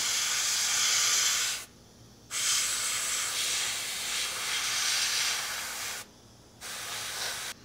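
Mr. Hobby PS290 trigger-type airbrush spraying: compressed air hissing through the nozzle in three bursts, cut off briefly twice as the trigger is released. The paint is a metallic silver thinned with metallic thinner.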